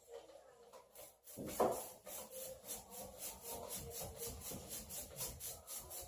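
Paint being spread on a wall in quick back-and-forth strokes, an even rubbing rhythm of about four strokes a second that starts a little over a second in.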